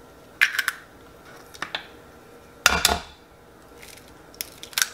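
Eggs being cracked and opened over a bowl. There are short clusters of sharp shell cracks and clicks, and one louder knock about two and a half seconds in.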